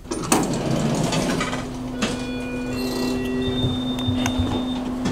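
Elevator running: a steady hum with one low held tone, a sharp knock near the start and a few held higher tones sounding around the middle.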